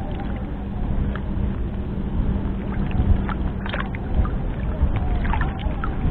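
Water sloshing and lapping around a person wading in a pond, with small drips and light splashes over a steady low rumble.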